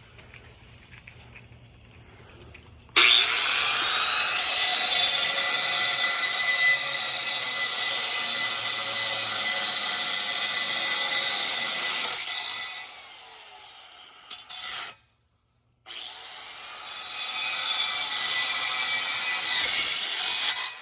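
Power cutting tool biting into metal: a harsh, steady cutting noise with a high whine that starts suddenly about three seconds in, eases off near the middle, cuts out for a moment and then builds again.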